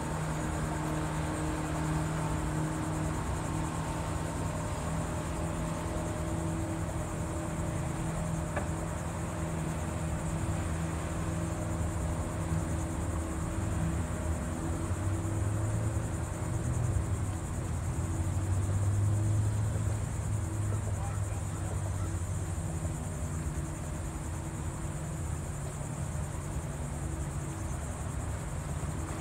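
Motorboat engine running with a steady low hum as a boat passes on the river, swelling louder around the middle, over a steady high-pitched buzz of insects.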